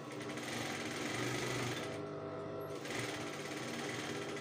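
Sewing machine stitching a seam, stopping briefly about two seconds in and then running again.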